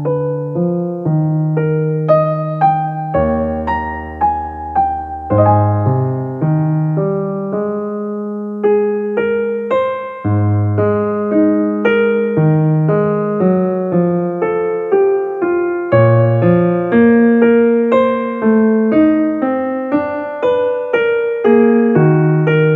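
Background piano music, a melody of single notes and chords struck at an even pace, each note fading after it is struck.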